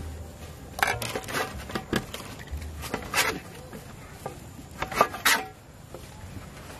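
Scattered light taps and clicks of a steel spoon and hands handling bread on a wooden chopping board, with a pair of sharper clicks about five seconds in.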